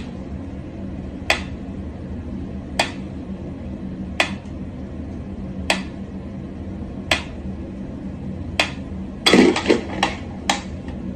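A sharp click repeats about every second and a half over a steady low hum, then a quick flurry of louder knocks and rattles comes near the end.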